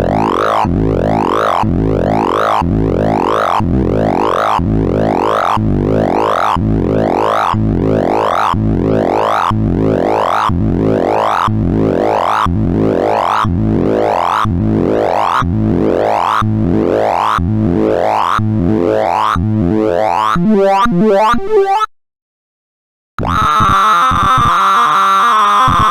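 Sorting-algorithm sonification: synthesized beeps whose pitch follows the array values, sweeping up and down over and over, about three sweeps every two seconds. About 20 seconds in they break into jumbled tones and stop for about a second. They return as a dense, chaotic cacophony of rapid tones as a new sort runs.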